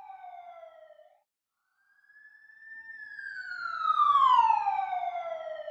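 A siren wailing: a falling tone that breaks off about a second in, then after a short silence a long wail that rises a little and slides slowly down, loudest in the middle, and begins to rise again at the end.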